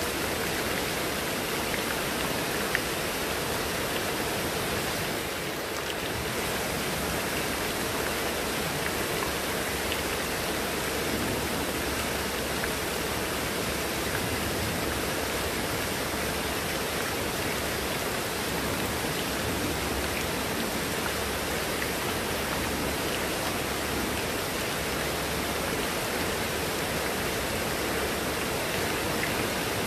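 Heavy rain falling in a steady downpour, an even unbroken hiss of water.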